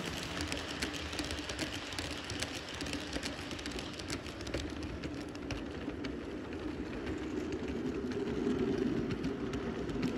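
G-scale model freight train rolling past close by: a long string of plastic hopper cars runs on the track with a steady rolling hum and frequent irregular clicks from the wheels on the rails.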